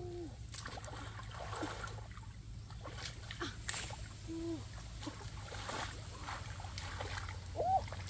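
Shallow muddy stream water splashing and sloshing as hands grope through it to catch fish and frogs, with a few sharper splashes. A few short pitched calls sound now and then, one near the end.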